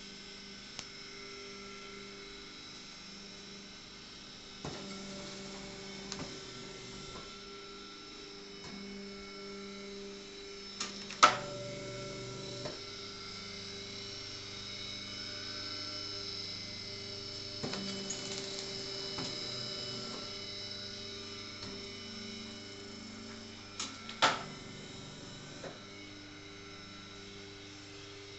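Paper plate making machine running with a steady electric motor hum, broken by a few sharp clicks and knocks, two of them much louder than the rest.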